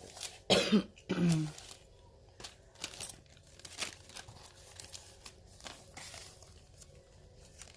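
Rustling and crinkling of small jewelry packaging with light clicks as pieces are handled, after a short murmur of the voice about half a second in.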